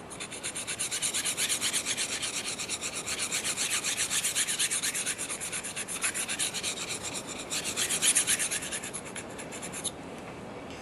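The steel blade of a Simmons Interceptor two-blade broadhead is stroked quickly back and forth across an abrasive sharpener in a clamp guide, a rhythmic grinding scrape, using heavy pressure to raise a burr on the edge. The strokes stop abruptly near the end.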